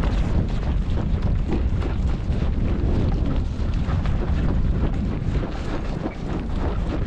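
Wind buffeting the microphone over the steady low rumble of a vehicle on the move.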